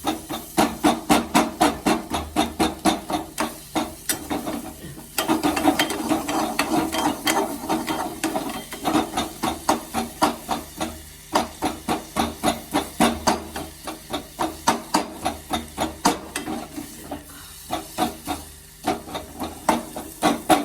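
A cooking utensil knocking and scraping in a kadhai, breaking up and stirring jaggery pieces with grated ginger so they melt. About three knocks a second, with a few short pauses.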